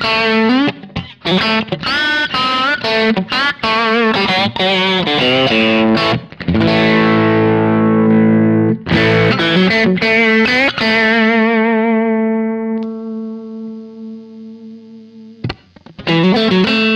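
Strat-style electric guitar fitted with Häussel TE Broad bridge and neck pickups and an underwound middle pickup, played through an amp: picked riffs and chords. About two-thirds of the way in, a chord is left to ring and fade with a wavering vibrato, and the riffing starts again near the end.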